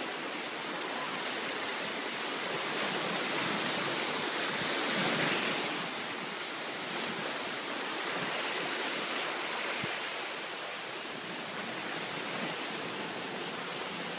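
Gulf surf washing in around concrete pier pilings: a steady rush of breaking waves that swells louder about four to five seconds in, then settles.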